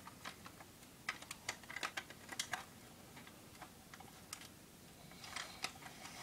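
Light, irregular plastic clicks and snaps from the parts of a Powermaster Optimus Prime Transformers figure being moved by hand. The clicks are faint and come in scattered runs.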